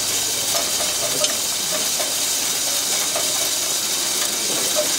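Steady hissing noise with faint short ticks scattered through it.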